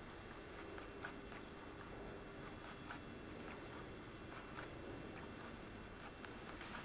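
Quiet room tone with faint, irregular small clicks and ticks scattered throughout.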